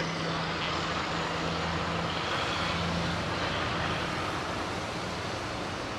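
A vehicle engine running under a steady rush of noise, its low hum weakening about halfway through.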